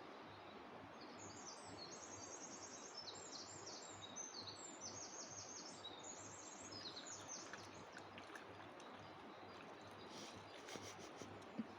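Faint, steady rush of a river. Over it, a small songbird sings high, rapid trilled phrases for the first half or so, and there are a few faint clicks near the end.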